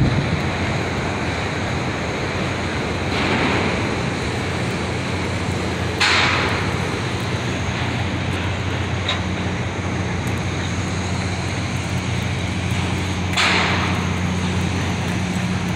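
Outdoor city ambience: a steady low hum under an even hiss, with three brief louder swells of hiss.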